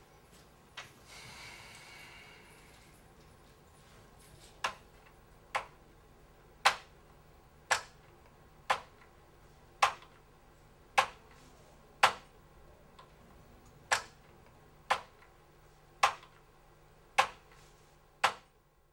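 Ticking about once a second, like a clock, sharp and even-paced, from about five seconds in. Before it comes a short breathy sound.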